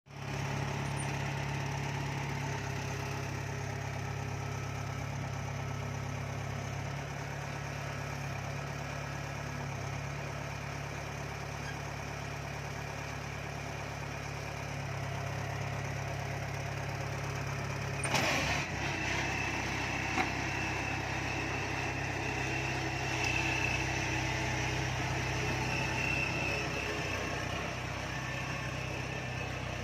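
Combine harvester engine running steadily. About eighteen seconds in there is a brief clatter, after which a steady high whine joins the engine.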